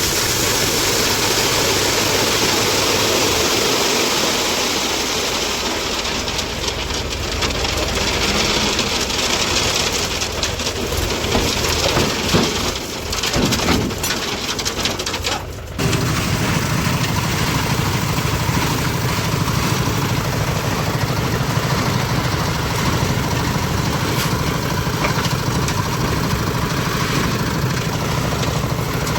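Diesel engine of a JCB 3DX backhoe loader running at work, a continuous heavy engine noise. About halfway through it changes abruptly to a steadier, lower drone.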